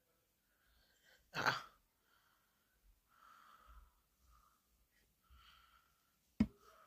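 A woman's short, sharp breath about a second and a half in, then a single click near the end, with very little else heard.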